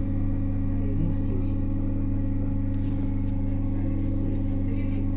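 ED9M electric train running with a steady low electrical hum, with a few faint clicks over it.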